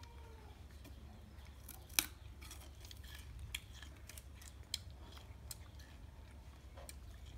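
Irregular small snaps and crunches of fresh sugarcane being stripped apart by hand and chewed, the sharpest snap about two seconds in.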